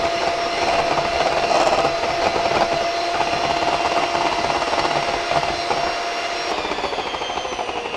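Handheld electric hand mixer running steadily, its twin beaters whipping heavy cream in a stainless steel bowl. The motor whine holds one pitch and drops a little near the end as the cream stiffens toward peaks.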